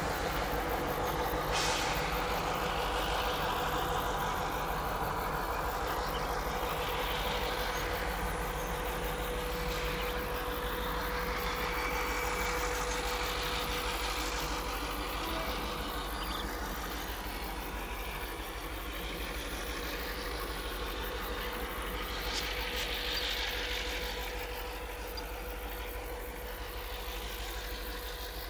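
Diesel-electric locomotive running as it hauls ballast hopper wagons slowly away on a shunting move, with a steady whine over the engine and the sound easing off slightly near the end.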